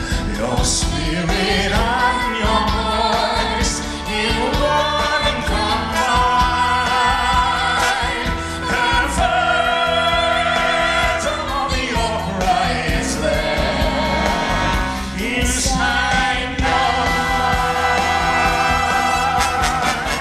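A woman and a man singing a duet with vibrato over a live band with electric bass and drums, heard through the hall's PA from within the audience.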